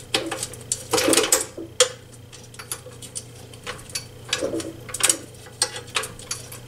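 Irregular metallic clicks and clinks of a wrench working on the nut of a swivel wheel caster as the caster is fastened back onto a stool's base, with a few louder clanks about a second in and around five seconds in.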